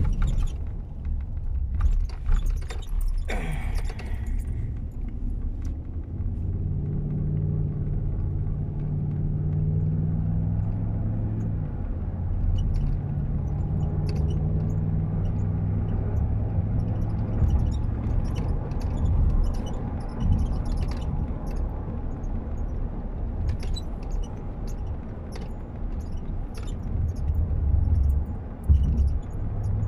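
Car driving on a road, heard inside the cabin: a steady low rumble of road and engine noise. For several seconds in the first half the engine hum holds a steady pitch, and faint light rattles or clicks come and go later on.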